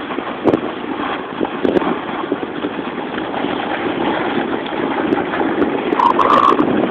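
Steady rushing noise of wind on the microphone, with the scrape of a snowboard running over snow.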